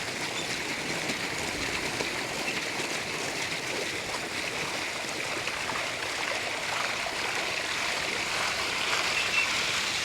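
Irrigation water running steadily through an earthen field channel into a paddy field.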